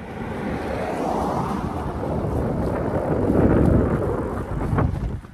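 Wind buffeting the microphone of a camera on a moving bicycle, a heavy rumbling rush that swells about three to four seconds in and drops away near the end.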